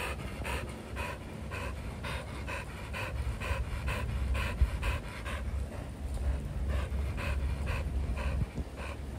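American bully-type dog panting hard and fast, about three breaths a second, open-mouthed with its tongue out: it is tired after running after a ball.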